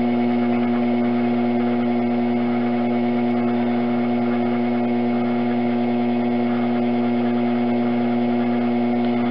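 Electric pottery wheel running at a steady speed, giving a constant motor hum with a faint whine.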